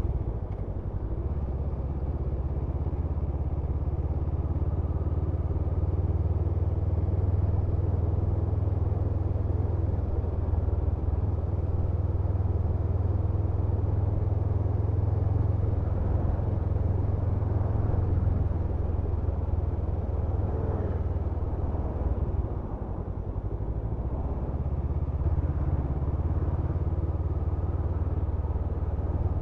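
Honda CMX500 Rebel's parallel-twin engine running at road speed under heavy wind rush on the microphone: a steady low rumble that eases off briefly about 22 seconds in.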